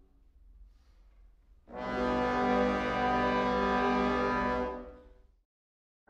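Background music: after a faint opening second or so, one long held chord comes in, lasts about three seconds and fades out.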